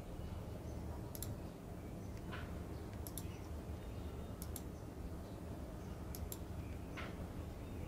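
Computer mouse clicking: a few sharp clicks, several in quick press-and-release pairs, spaced a second or two apart over a low steady background hum.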